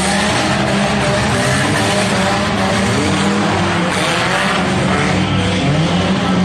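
Several demolition derby cars' engines running loud and revving, their pitch wavering up and down, with a rising rev near the end.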